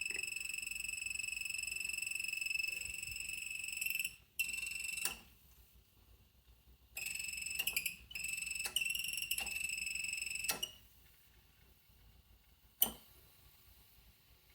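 Niagara Stealth toilet making a high-pitched whistle, a steady tone that runs for about four seconds, then starts and stops in shorter stretches, each cut off sharply with a click. A single sharp click follows near the end.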